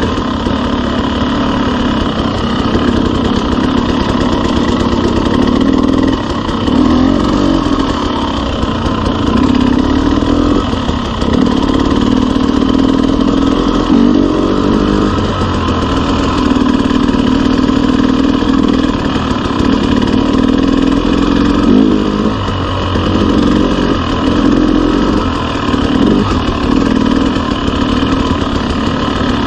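KTM 300 two-stroke enduro dirt bike engine running at low trail speed, its note rising and falling every few seconds as the throttle is opened and closed.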